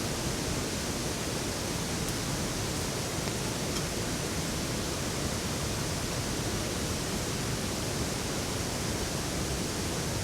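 Heavy rain falling steadily, an even hiss with a couple of faint ticks.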